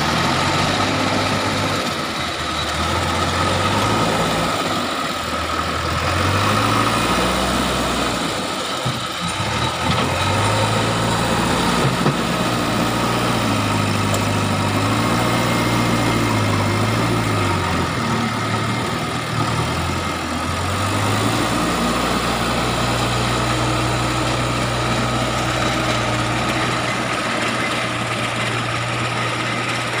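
JCB backhoe loader's diesel engine working as it pushes stones, its pitch rising and falling again and again as it revs up and down. About two-thirds of the way through it settles to a steady speed.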